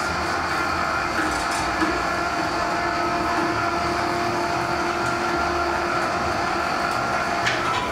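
Electric hoist motor running with a steady hum as it lowers a rack of lamb on a cable into a pit oven; the hum stops shortly before the end.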